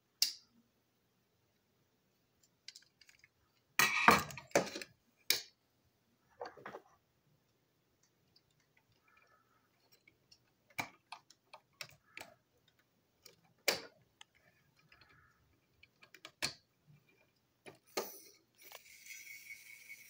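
Scattered plastic clicks, taps and clatter of a toy locomotive's chassis, motor block and body shell being handled and pried at with a small screwdriver, with a louder burst of rattling about four seconds in. Near the end a steady high-pitched noise starts.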